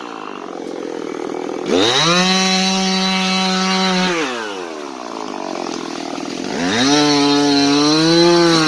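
Two-stroke chainsaw running at idle, then throttled up to full speed twice, each time for about two seconds. It drops back to idle in between.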